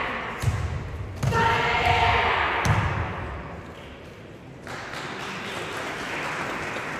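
Karateka being thrown and taken down onto the tatami during a team kata's applied-combat part: several dull thuds in the first second and a half, voices about a second in, and a sharp knock near three seconds. Then a quieter stretch of hall noise.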